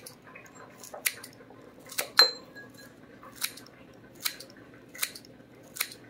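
Kitchen scissors snipping a bunch of fresh chives, a crisp snip roughly every second, seven or eight in all. One snip about two seconds in is louder, with a brief ring after it.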